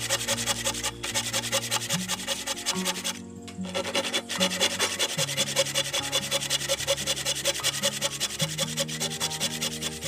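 Steel blade scraped rapidly back and forth against hardwood door-frame timber, pausing briefly about three seconds in, over background music.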